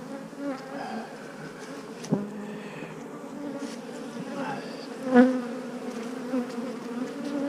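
Honeybees of a queenless colony buzzing steadily over the open hive, with a sharp knock about two seconds in and a louder brief knock about five seconds in.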